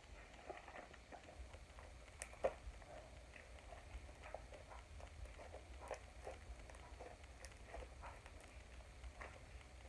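Homemade slime being kneaded and pulled by hand: a quick, irregular run of small sticky clicks and pops, with one louder pop about two and a half seconds in.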